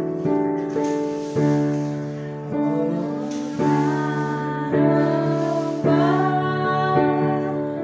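A woman singing while accompanying herself on a digital piano, sustained chords struck about once a second under her voice.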